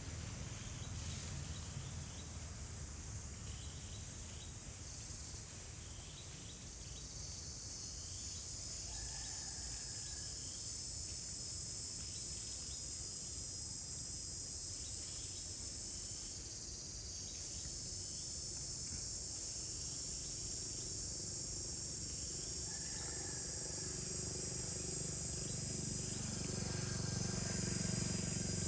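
Steady chorus of forest insects, a high shrill drone that swells about seven seconds in and dips briefly past the middle, over a low rumble.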